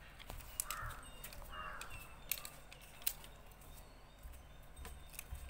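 Faint clicks and small taps of stick-on bindis being peeled and pressed onto a paper card, with two short harsh bird calls about a second in.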